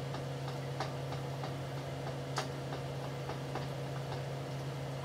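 Bacon frying in a pan of bubbling fat, spitting irregular pops and crackles, two of them louder than the rest. A steady low hum runs underneath.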